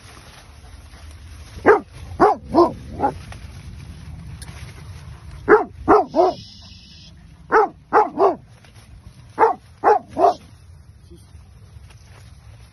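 Akbaş livestock guardian dog barking in four short bursts of three or four barks each, over a steady low rumble.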